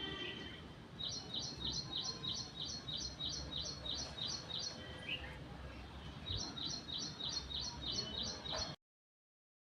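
A bird singing a fast run of repeated high chirps, about four a second, in two runs with a short break between them, over a steady outdoor hiss. The sound cuts off abruptly near the end.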